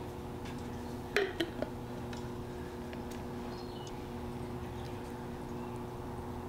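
Wooden spoon stirring in a glass mug of tea, knocking lightly against the glass three times about a second in, over a steady low hum.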